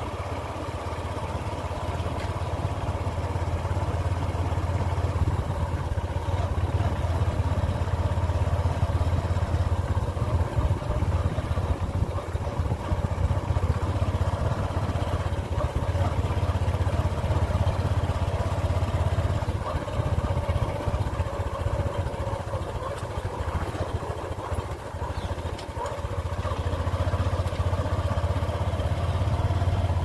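Motorcycle engine running steadily while the bike is ridden along a rough track. It eases off about two-thirds of the way through and picks up again near the end.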